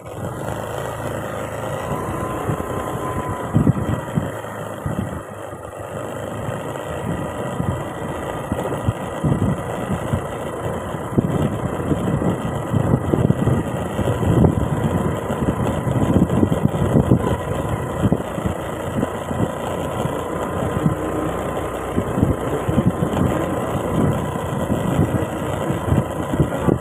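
Motor scooter's small engine running steadily as it is ridden along at road speed, with wind buffeting the microphone.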